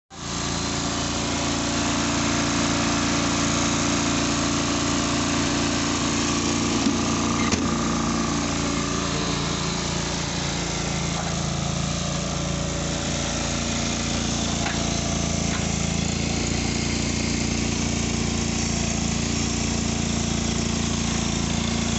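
John Deere 425 lawn tractor's engine running steadily, with a couple of light clicks about seven seconds in.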